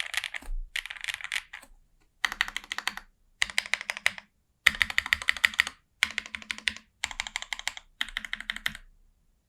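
Typing on a Jris65 mechanical keyboard with lubed SOTC linear switches on an FR4 plate, with plate and case foam: quick runs of keystrokes in about seven short bursts with brief pauses between them, stopping shortly before the end.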